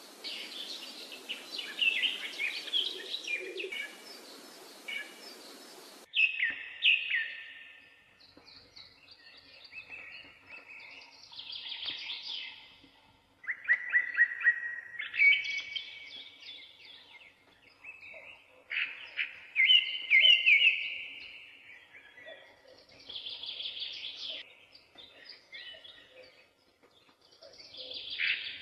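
Birds singing: repeated short chirps and trills, with a steady hiss under them for the first several seconds that cuts off suddenly.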